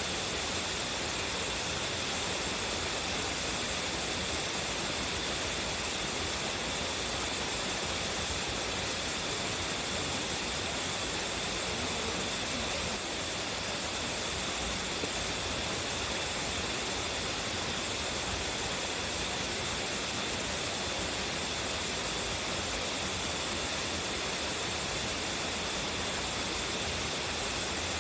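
Waterfall with a strong flow, its water pouring and splashing in a steady, even rush.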